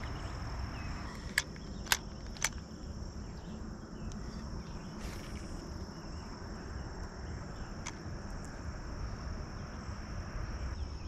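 Steady insect chorus outdoors, a continuous high-pitched buzz, over a low rumble. A few sharp clicks come about one and a half to two and a half seconds in.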